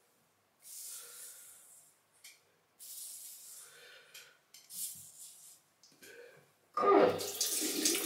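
A few short scraping strokes of a safety razor across a lathered scalp, each about a second long. About seven seconds in, a tap comes on and water runs steadily into a sink, the loudest sound here.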